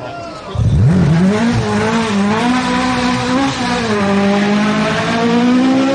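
Rally car engine at high revs: its pitch climbs sharply about half a second in, then holds high with small rises and falls, rising again near the end.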